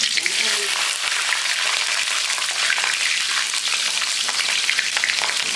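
Panch phoron and dried red chillies sizzling in hot oil in a pan, a steady hiss full of small pops and crackles.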